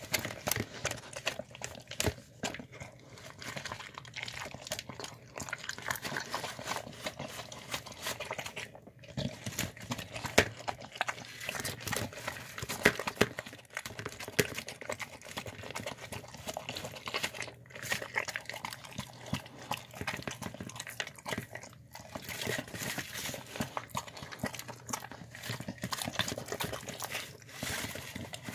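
A dog eating wet slop of chicken, rice and cabbage from a clear plastic tub: a steady run of wet chewing and mouth noises, broken by a few brief pauses.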